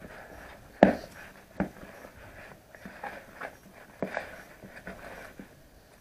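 A hand beating soft beignet dough in a basin: irregular slaps and knocks, the loudest about a second in.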